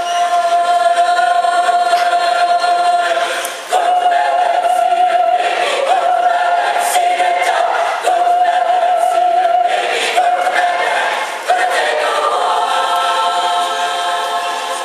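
Mixed choir of men's and women's voices singing a Christmas choral piece in long held chords, phrase after phrase, each lasting a few seconds.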